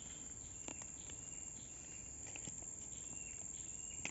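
Faint insects chirping: short high notes recurring every second or so over a low hiss, with a few soft clicks.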